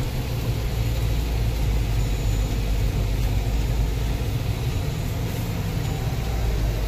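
Supercharged 6.2-litre V8 of a 2018 Jeep Grand Cherokee Trackhawk, heard from inside the cabin while driven at low speed. It is a steady, deep engine note.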